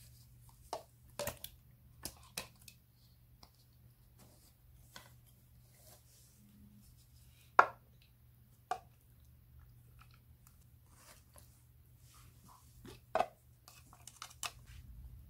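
Scattered knocks and taps of kitchen handling: raw chicken pieces and chopped ingredients dropped into a plastic food processor bowl, with dishes knocking against it, the sharpest knock a little past halfway. A faint low hum runs underneath.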